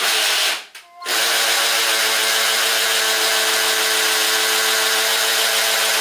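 Electric drill running in two short bursts, then holding a steady whine from about a second in, drilling a mounting hole for a residential smoke alarm.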